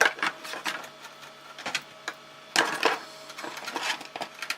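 Irregular clicks, taps and short rustles of computer parts, cables and packaging being handled. The busiest stretch comes about two and a half seconds in.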